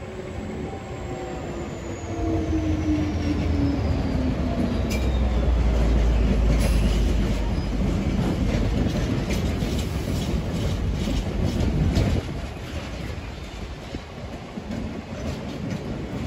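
A Euro Cargo Rail locomotive and its freight train pass close below, the locomotive's sound falling in pitch over the first few seconds as it goes by. The wagons follow with a heavy low rumble and rapid wheel clatter over the yard's points and rail joints, easing off about twelve seconds in.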